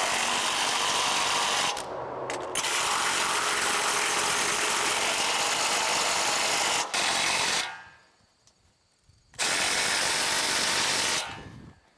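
Impact wrench driving bolts in a long run that stops about eight seconds in, then a shorter second run that stops near the end.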